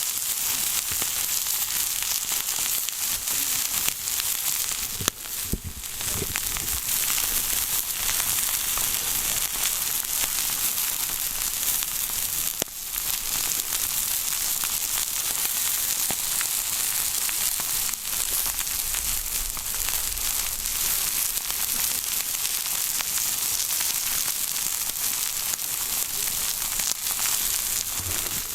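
Steak sizzling steadily on a hot outdoor iron griddle plate over a campfire, a dense continuous hiss, still cooking on its first side, with two brief dips about five and twelve seconds in.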